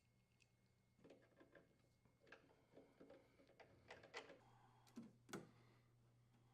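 Faint scattered clicks and light knocks, the two loudest near the end: hand tools and screws working the refrigerator's sheet-metal lower rear access panel as it is put back on.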